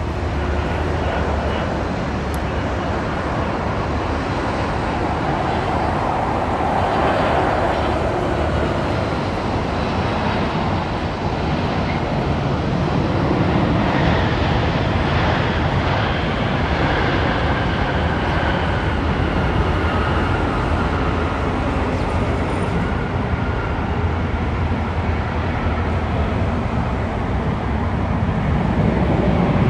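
Boeing 767 jet airliner on approach and landing, its engines a steady, loud jet roar with no distinct events, growing a little louder near the end.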